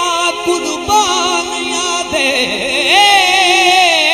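A man singing a Punjabi folk song in long, ornamented held lines, accompanied by a harmonium, with a few drum strokes from the tabla.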